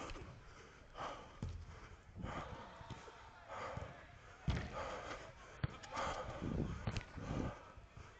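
A footballer's heavy breathing and running footsteps, close to the microphone, in irregular puffs, with a few sharp knocks in the middle.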